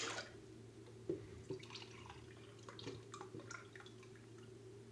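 Milk poured from a drinking glass into a stainless-steel saucepan: a short splashing pour right at the start, then a few faint drips and clinks of glass over a steady low room hum.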